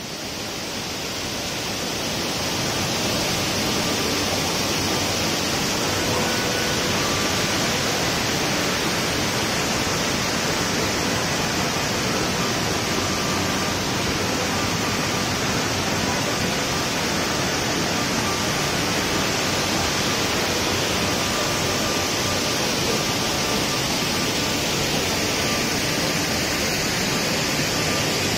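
Waterfall's steady rush of falling water, fading in over the first couple of seconds.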